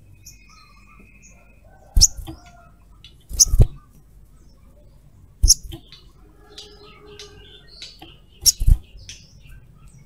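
Caged olive-backed sunbird giving faint, short, high chirps. Four loud sharp knocks, two of them doubled, come from the bird moving about the cage close to the camera.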